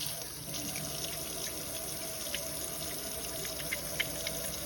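Tap running steadily into a sink while wet hands rub a bar of 100% tallow soap into a lather, with small wet clicks scattered through.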